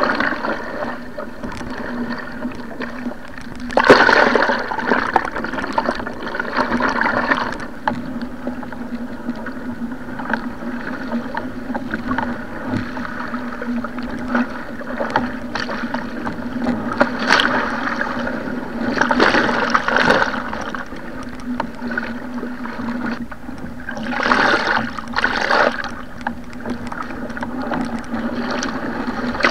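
Water rushing and splashing around a surfski in a rough, wind-driven sea, with a steady low hum underneath. There are louder bursts of splashing about four seconds in, about two-thirds of the way through, and near the end.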